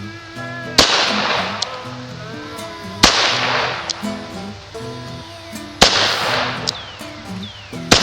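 Intro music with a pitched melody, punctuated by four sharp loud bangs roughly every two and a half seconds, each fading out over about a second.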